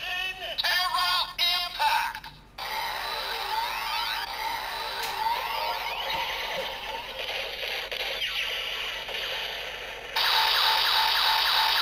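DX Kamen Rider Zero-One toy transformer belt playing its electronic finishing-attack sequence ("Rising Terra Impact"). It opens with a short processed announcement voice, then a long scanning effect of gliding electronic tones, and a louder fast pulsing begins near the end.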